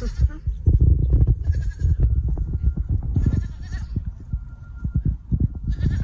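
Goats bleating in several short calls over a heavy low rumble.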